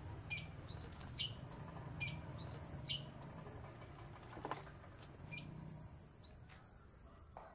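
Repeated short, high squeaky kissing sounds made with pursed lips to coax a caged pet bird, about one every half second to a second, stopping after about five and a half seconds.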